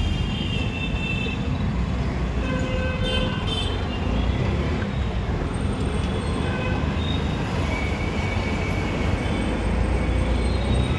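Steady engine and road rumble from a moving auto-rickshaw, heard from the passenger seat, with traffic noise around it and short high-pitched tones here and there.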